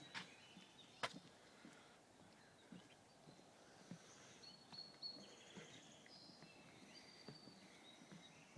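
Faint birdsong of short high chirps and trills, with soft footfalls on a trail. There are two sharp clicks about a second apart near the start.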